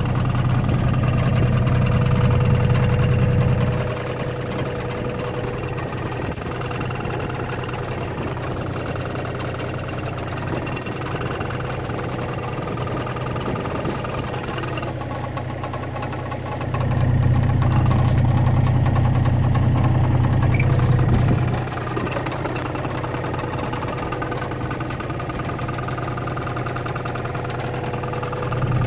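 John Deere 35D mini excavator's Yanmar diesel engine idling steadily. A louder low rumble swells in twice, at the start and about two-thirds through, each for a few seconds.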